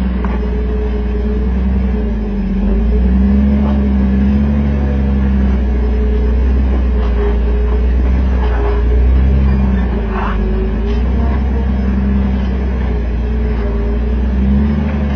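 Off-road vehicle's engine running at low revs while crawling up a rocky hill, its note rising and falling a little, with a few faint knocks.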